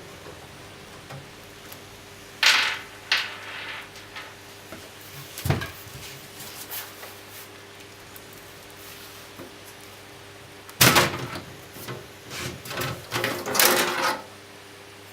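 Handling noise from a small Mini-ITX PC case: its panels and parts being slid, scraped and knocked in scattered short bursts, with a busier run of scrapes and clicks from about eleven to fourteen seconds in. A faint steady hum lies underneath.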